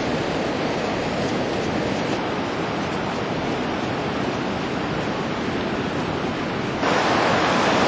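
Ocean surf, a steady rushing wash. About seven seconds in, the noise abruptly gets louder and hissier.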